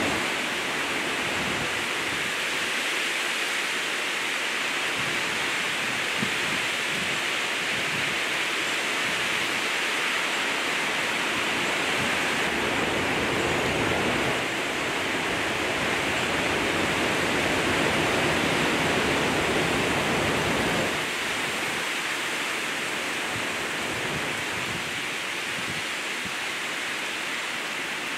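Hurricane wind and heavy rain: a steady rushing of wind through palm fronds and trees with rain, swelling in a long gust through the middle and easing slightly about two-thirds of the way through.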